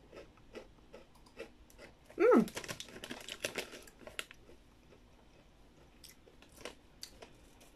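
Chewing a crunchy chocolate-covered wholegrain cornflake square: irregular crisp crunches, thickest about two to four seconds in. A short falling hummed "mm" from the eater sounds just after two seconds.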